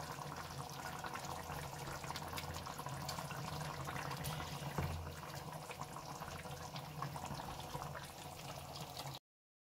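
Tomato sauce simmering in an enamel pan, a steady fine bubbling and crackling over a low hum, with a sharper tick about five seconds in. It cuts off suddenly near the end.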